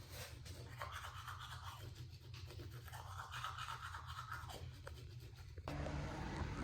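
Faint scuffing footsteps and rustling while walking, over a low steady hum. About five and a half seconds in, the background switches abruptly to a different, slightly louder hum with steady low tones.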